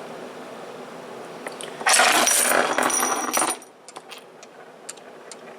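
A loud clattering crash of hard objects falling, about two seconds in and lasting about a second and a half, with a high ringing tone through it, followed by a few small clicks and taps as things settle.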